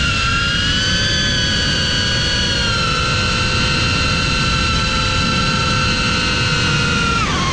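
FPV drone's electric motors and propellers whining at a steady pitch, heard from the onboard GoPro, with wind rushing over the microphone. The whine drops in pitch near the end as the throttle eases off.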